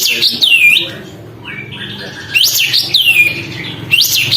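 Kapas tembak bulbul singing: three short phrases of loud, high whistled notes that sweep sharply down and back up, near the start, about the middle and near the end.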